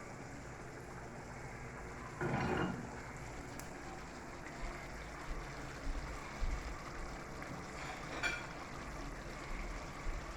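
Brown stew fish cooking in a covered pot on the stove: a steady low hiss, with a short clatter about two seconds in and a few soft knocks later on.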